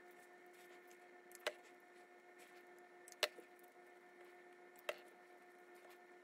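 Three light, sharp clicks, roughly evenly spaced, as small air-motor parts (cylinder, rotor and vanes) are handled and fitted by gloved hands, over a faint steady hum.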